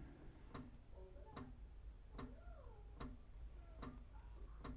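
Faint, regular ticking, a little more than one tick a second.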